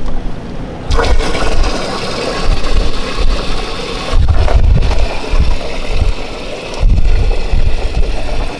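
Water from a hose spray nozzle running into a plastic bin, filling it, starting about a second in. Wind buffets the microphone in gusts.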